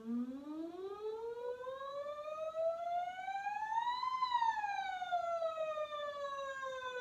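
A woman's voice doing a vocal siren warm-up: one smooth, unbroken glide that rises from a low note to a high one about four seconds in, then slides gently back down.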